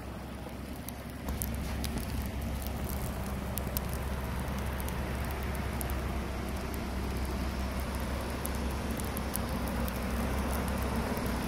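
Steady low hum of an idling pickup truck engine under a hiss of falling snow, with scattered small ticks. It gets louder about a second in.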